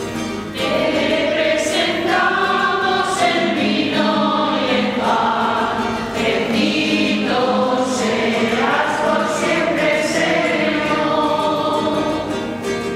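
Mixed choir of men and women singing together, accompanied by an acoustic guitar.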